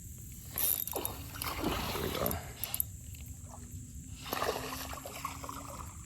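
A fishing reel cranked in with a ratcheting, gear-like whirr in two spells, as a hooked bass is reeled in.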